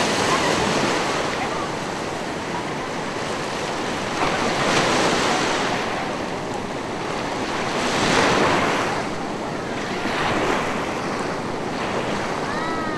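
Sea surf washing in and breaking on a shallow beach, swelling in surges every few seconds, with wind buffeting the microphone.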